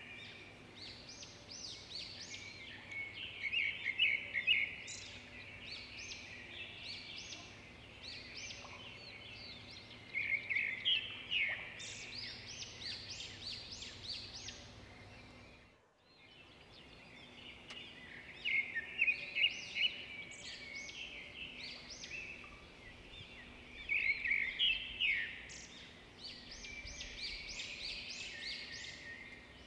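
Birds chirping and calling in a busy, continuous chorus of short high calls, which dips out briefly about halfway through.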